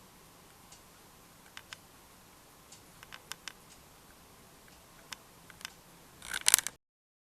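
Faint hiss with scattered light clicks from a camera being handled, then a short burst of louder knocks and rustling close to the microphone near the end, after which the recording cuts off abruptly.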